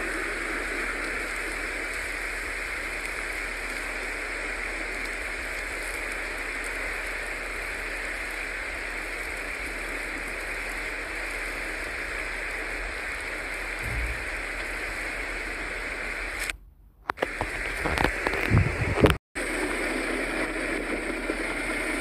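Steady rushing of a fast river and wind in a snowstorm. Near the end it cuts out briefly, a few loud low thumps follow, then it cuts again.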